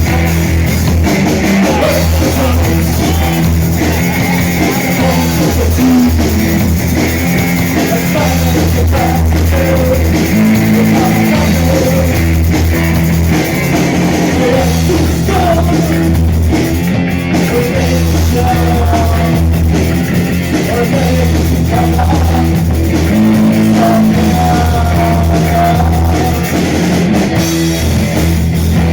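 Rock band playing live, with guitar, bass and drum kit.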